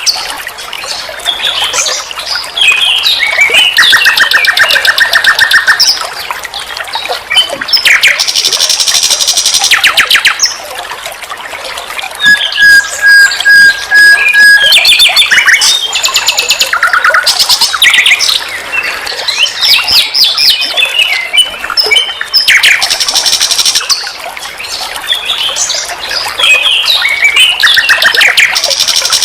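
Nightingale singing a loud, varied song. Its phrases of rapid repeated notes and trills alternate with a run of even, evenly spaced whistled notes about halfway through, with short pauses between phrases.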